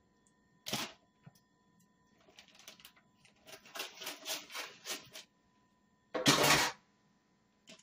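Handling noises in a kitchen: a short knock, then about three seconds of rapid, irregular rustling and clicking, and a loud brief scrape or rustle near the end.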